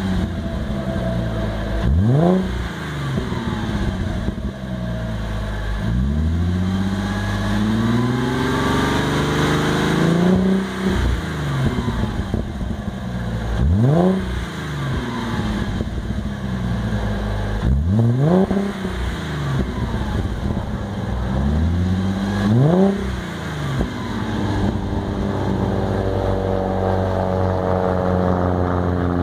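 Audi A4 B7's 3.2 V6 through a new, not-yet-broken-in OBX cat-back exhaust with the front resonators kept, revved from idle. Four quick, sharp throttle blips and one slower rev that climbs for about four seconds before dropping back. It settles to a steady idle near the end.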